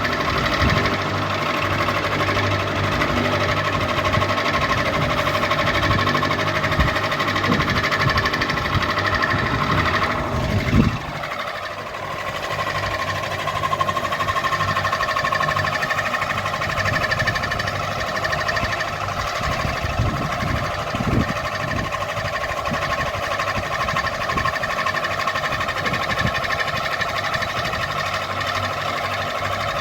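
Ceiling fan running: a steady motor hum and whine with irregular knocking and rattling. About eleven seconds in a louder knock comes with a short falling tone and a brief dip before the steady running resumes.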